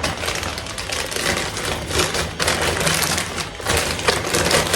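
Rustling and crinkling of a shopping bag being handled as a purchase is taken out, with light taps and knocks mixed in.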